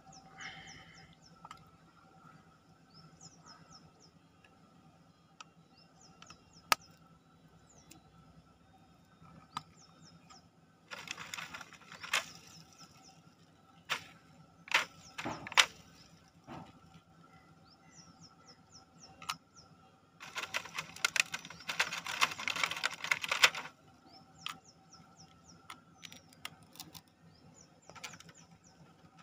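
Plastic film crinkling and rustling as hands handle an earbuds charging case, with two longer spells of crackling about 11 and 21 seconds in, and scattered sharp clicks and taps from the case. Birds chirp faintly throughout.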